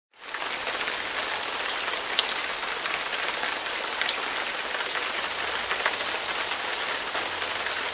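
Steady rain: an even hiss with scattered sharp drop ticks, starting just after the opening.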